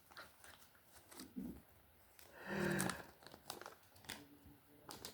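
Thin plastic packaging crinkling and rustling in the hands, with scattered small clicks of plastic Lego minifigure parts being handled. A brief hummed vocal sound rises above it about halfway through.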